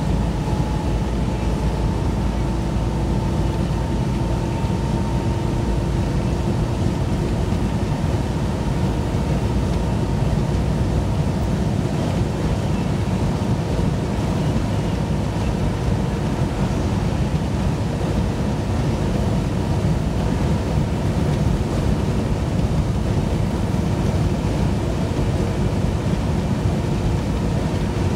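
Steady road and engine noise heard inside a vehicle's cabin while driving on a highway: an even low rumble with a faint hum of steady tones.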